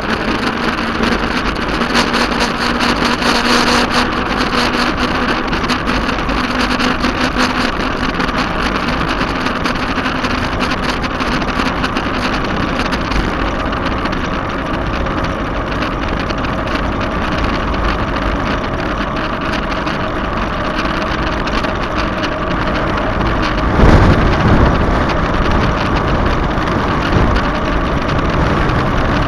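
Motorcycle engine running at a steady cruise, mixed with the rush of wind over the camera while riding. About 24 s in there is a brief loud low buffet.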